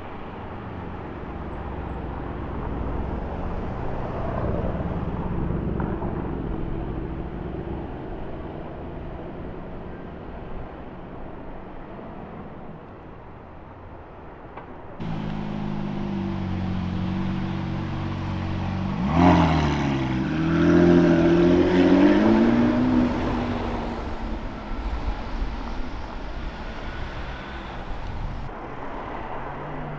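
Supercar engines in the street. In the first half an engine runs with a low, uneven note. About halfway through the sound cuts to another car idling, which revs hard with a sharp burst and a rising engine note, loudest a few seconds later, then fades.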